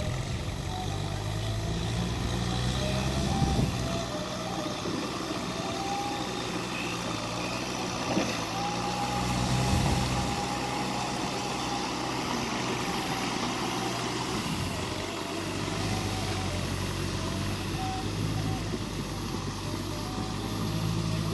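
Kubota M6040SU tractor's four-cylinder diesel engine running under load while it pulls a rotary tiller through the mud of a flooded rice field. The engine note rises and falls unevenly as it works.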